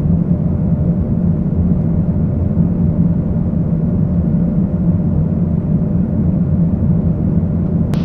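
Steady flight-deck noise of an Airbus A220-300 on final approach: airflow and engine rumble with a constant low hum.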